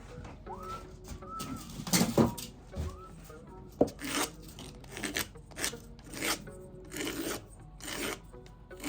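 Hand abrading the end of a wooden dowel: short scraping strokes, one to two a second, starting about two seconds in. The strokes knock down the dowel's edges so it slides into its hole more easily.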